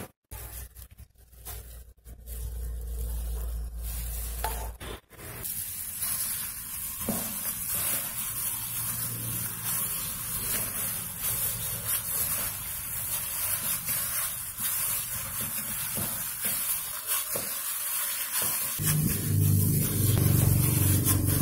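A hand in a thin plastic glove kneading mashed potato, shredded chicken and chopped herbs in a plastic bowl: steady crackly rustling and squishing. A low hum comes in near the end.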